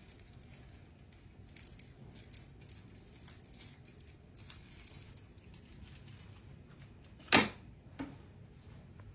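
Small scratchy clicks and rustles of hands working an LED light strip against a wall, then one loud, sharp click about seven seconds in and a smaller one just after.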